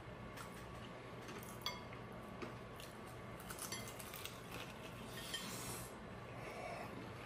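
A person eating crispy homemade Korean-style fried chicken by hand: small clicks and tearing sounds as pieces are pulled apart, and a crisp crunch of the coating on a bite about five seconds in. A single ringing clink of a dish or glass comes about a second and a half in.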